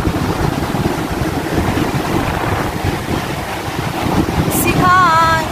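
Strong wind buffeting the phone's microphone, a loud steady rumble. Near the end comes a short wavering pitched sound.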